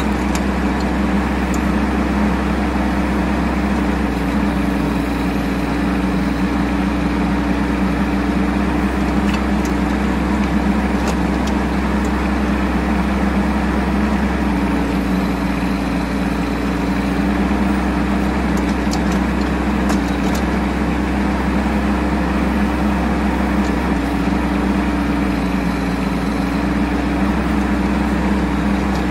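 Bobcat E10 mini excavator's small three-cylinder diesel engine running steadily while digging. Its note dips slightly twice as the load changes.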